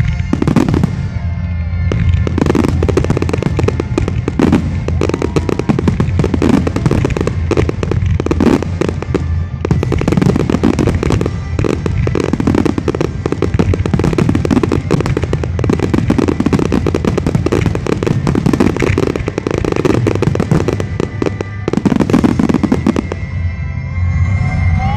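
Dense fireworks barrage: many aerial shells and comets going off in quick succession, with bangs and booms overlapping into a near-continuous roll that eases a little just before the end.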